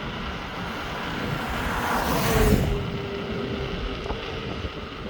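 A vehicle passes close by on the highway about two seconds in, its rush building and then dropping off quickly, over steady wind and road noise from riding an electric unicycle at speed.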